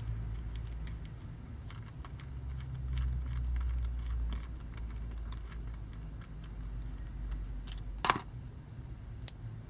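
Small plastic toy parts being handled and fitted, with light clicks and taps throughout and one sharper click about eight seconds in, over a low steady hum.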